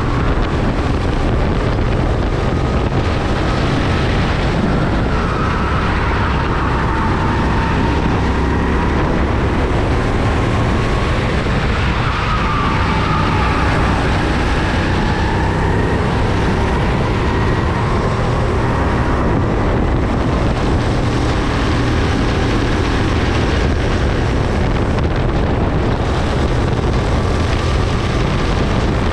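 Racing kart engine running hard on track, its pitch rising and falling with the corners, under heavy wind noise on the microphone.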